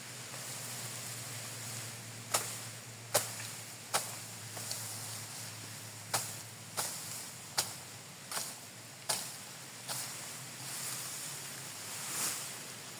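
Sickle cutting grass: about ten sharp slicing strokes, one every three-quarters of a second or so in two runs, over a steady hiss of wind in the grass.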